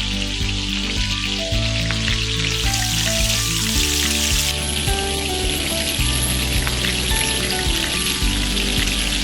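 Hot oil sizzling steadily as samosas deep-fry, over background music.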